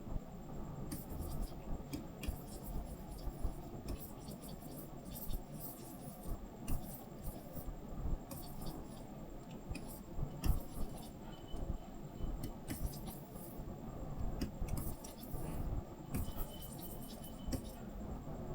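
Light scratching and scattered clicking of a stylus working on a drawing tablet, over a steady low hum.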